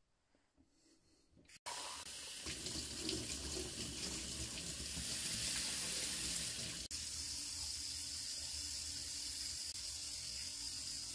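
Kitchen tap running into a stainless-steel sink, filling a cup held under the stream. It starts about a second and a half in, after near silence. A click comes about seven seconds in, and a steady hiss goes on after it.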